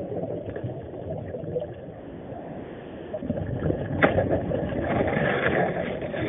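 Muffled water noise heard underwater, dipping a little in the middle and rising again, with one sharp click about four seconds in.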